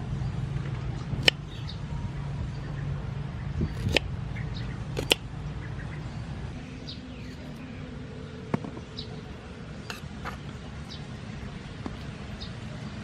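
Kitchen knife cutting broccoli on a wooden cutting board: a few sharp knocks of the blade against the board, spaced a second or more apart, with quieter cutting in between.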